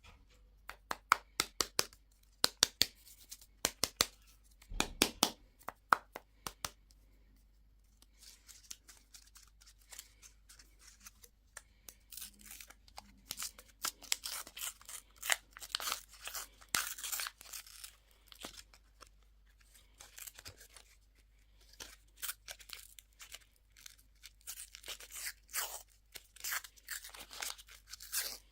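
Candy and toy packaging being opened by hand: a run of sharp clicks and snaps for the first several seconds, then wrappers being torn and rustled.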